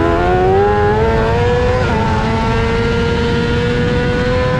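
Honda CBR600 inline-four engine at racing speed, pitch climbing under hard acceleration. There is one quick upshift about two seconds in, then it keeps pulling steadily higher.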